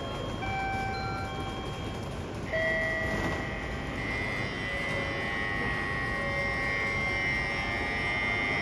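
Shinkansen platform's electronic signal: a few short chime notes at different pitches, then about two and a half seconds in a steady electronic ringing tone that holds for about seven seconds.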